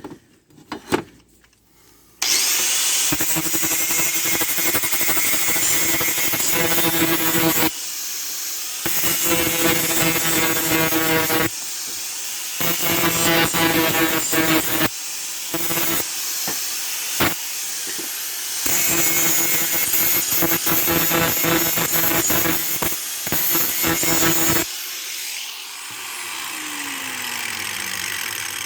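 Angle grinder fitted with a cutoff wheel, grinding paint off a metal pipe in several stretches with short breaks, to clean it so the pipes will fit together. Near the end it is switched off and its whine falls as the wheel spins down.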